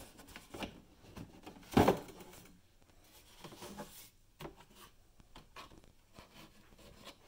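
Hard blow-molded plastic chainsaw case being opened and handled: scattered light knocks and rubbing of plastic panels, with one sharper, louder knock about two seconds in.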